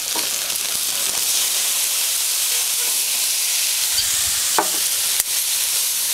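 Salted beef steaks sizzling on a hot barbecue grill, a steady hiss, with a couple of small clicks late on.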